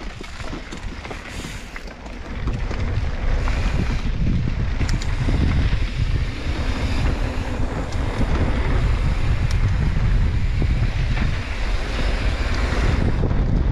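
Wind rushing over the microphone with a steady low rumble, as when riding fast down a mountain-bike flow trail. It gets louder about two seconds in.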